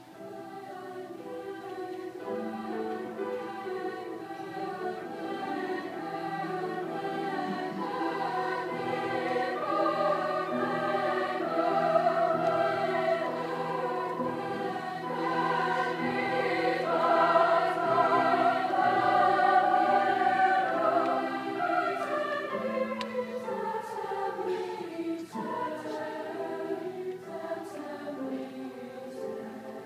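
Girls' choir singing a sacred choral piece in sustained, many-voiced harmony. The voices swell to their loudest in the middle, then soften toward the end.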